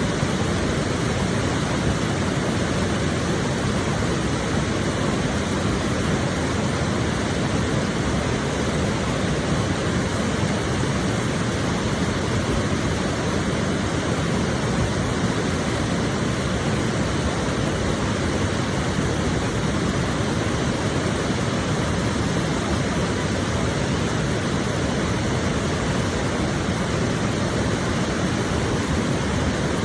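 River water rushing in a steady, unbroken roar of white water.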